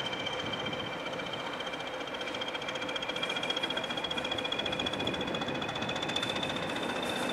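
Diesel locomotive moving slowly, its engine running with a high whine that rises slightly in pitch and grows louder toward the end.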